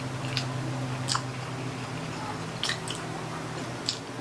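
Close-up chewing of a mouthful of pork baby back ribs and rice, with wet mouth clicks and smacks every second or so.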